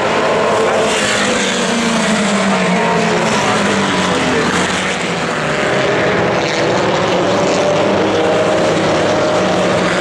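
A pack of historic Formula Vee racing cars with air-cooled Volkswagen Beetle-based flat-four engines passing at racing speed. Several engines overlap, their notes sliding up and down in pitch as the cars go by.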